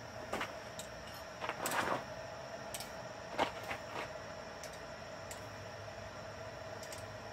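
Light metal clinks and a short rattling scrape of quarter-inch steel rod being shifted in a bending jig as the hairpin's ends are tightened, a few scattered knocks over a steady background hum.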